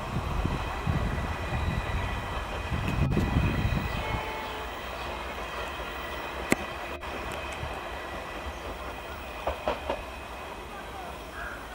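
A passenger train's coaches rolling away over the rails. A heavy low rumble fades after about four seconds into a quieter steady running sound, with a sharp click and then a few knocks near the end.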